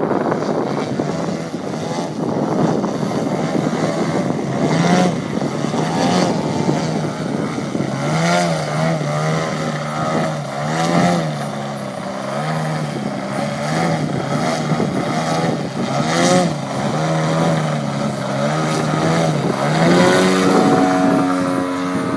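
Radio-controlled aerobatic model plane's engine and propeller running hard, the pitch rising and falling about once a second as the throttle is worked to hold the plane in hovering manoeuvres. Music comes in near the end.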